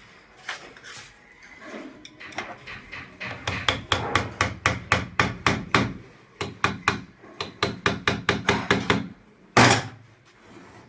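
A hammer taps in a quick, even run of sharp knocks, about four a second, ending with one heavier knock.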